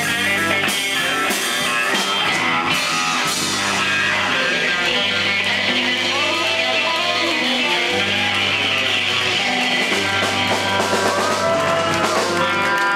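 Live rock band playing electric guitars, bass guitar and drum kit, with long held bass notes under the guitars.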